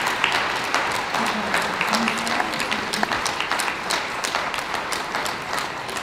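Audience applauding.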